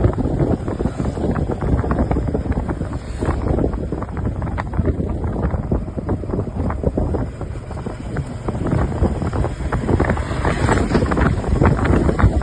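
Wind buffeting the microphone, a loud rough rumble that gusts up and down unevenly.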